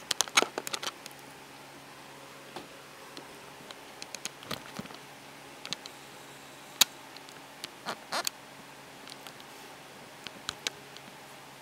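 Scattered light clicks and taps, a few sharp ones, over a faint steady hum.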